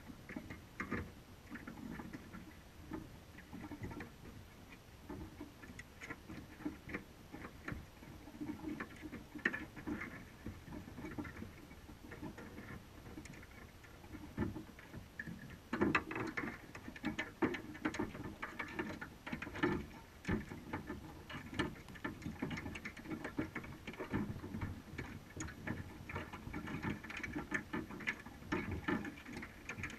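Underwater, irregular clicks, taps and scratches of crabs' shells and claws on the wire mesh of a crab trap and its bait cage, heard through the camera housing, over a low murky water rumble. The clicking grows denser and louder about halfway through.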